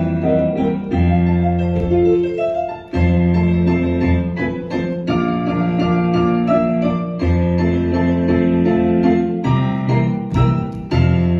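Piano music: full chords over deep bass notes, changing every second or two.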